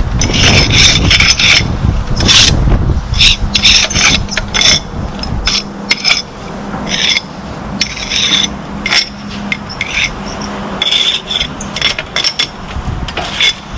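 Repeated rasping, scraping strokes, coming irregularly in quick clusters, with a faint steady hum underneath through most of the stretch.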